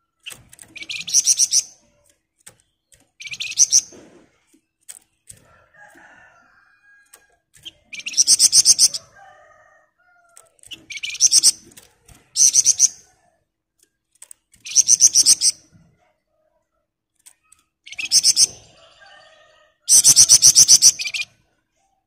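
Caged flamboyan songbird singing in short bursts of very fast, dense rattling trills, eight in all, each about a second long and a couple of seconds apart.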